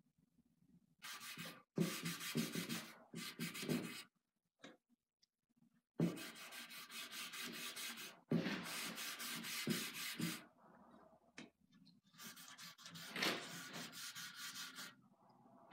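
A gloved hand wiping finish onto a wooden picture frame with a pad, in quick back-and-forth rubbing strokes. The rubbing comes in three spells with short pauses between.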